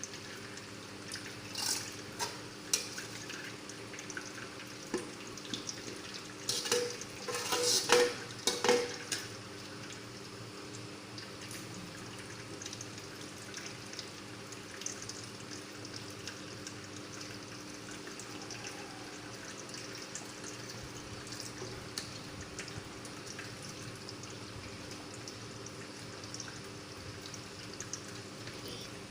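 Boiled lime-and-tea-leaf liquid being strained, with liquid pouring and dripping. Utensils clatter for a moment about seven to nine seconds in, with lighter knocks earlier, and after that only a low, steady background remains.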